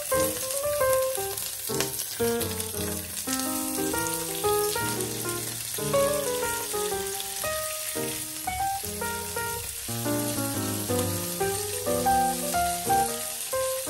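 Razor clams sizzling on a grill pan at full heat as a garlic, parsley and olive-oil dressing is spooned over them. Background music plays over it, a quick melody of short notes.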